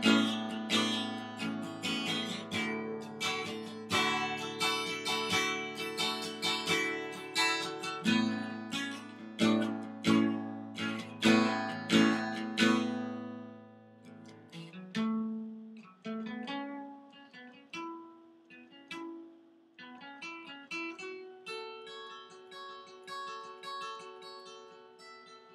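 Acoustic guitar instrumental break: strummed chords, then about fourteen seconds in it drops to a quieter passage of picked notes and ringing chords.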